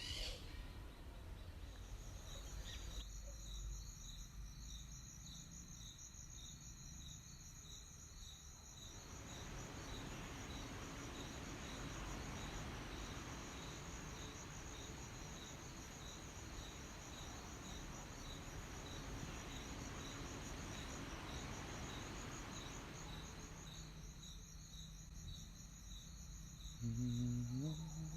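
Crickets chirping steadily in evenly spaced, high pulses. A broad rushing wash of noise swells in about a third of the way through and fades out again shortly before a low voice begins humming near the end.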